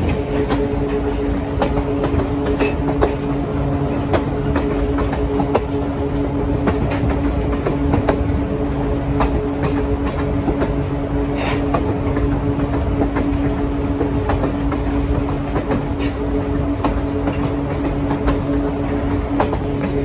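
Passenger train rolling along, wheels clicking over rail joints over a steady rumble, with the steady drone of an ex-Army Baldwin RS-4-TC switcher's 500-horsepower diesel working hard under load as it hauls the eight-car train.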